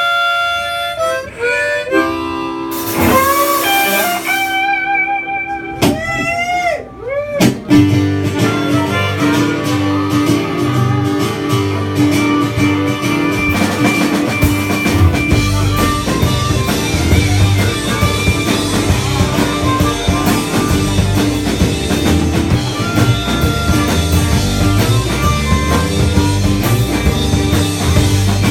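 Live band starting a song: a harmonica plays alone with held, bending notes, then about seven seconds in the full band comes in with drums, bass and guitar and keeps playing.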